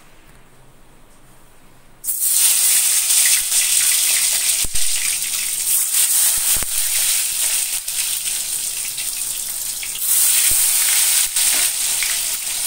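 Batter-coated eggplant slices hitting hot mustard oil in a steel kadai: a loud deep-fry sizzle that starts suddenly about two seconds in, with scattered crackles. It surges again about ten seconds in as another slice goes in.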